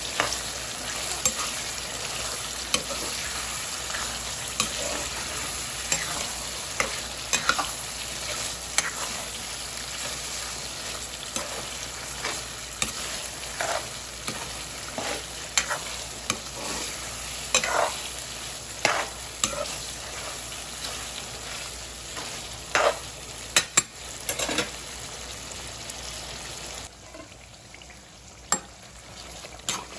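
Goat kidney masala sizzling as it fries in a pan, stirred with a spoon that scrapes and knocks against the pan at irregular intervals. The sizzling drops away abruptly near the end, leaving a few scrapes.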